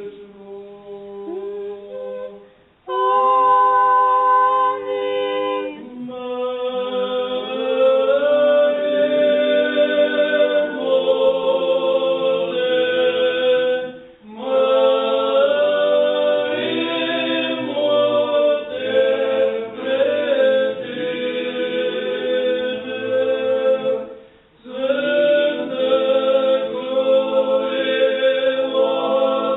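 Unaccompanied Orthodox church choir singing a liturgical hymn in several-voice harmony, in long phrases with short breaks about 3, 14 and 24 seconds in. A single voice intones briefly before the choir's first phrase.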